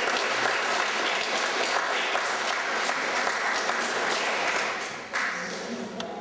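Audience of children applauding, the clapping dipping about five seconds in, then picking up briefly and fading near the end.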